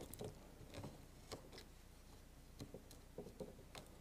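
Faint, scattered small clicks and taps of fingers pressing stiff plastic mesh into a picture frame's hot-glued edge, against near silence.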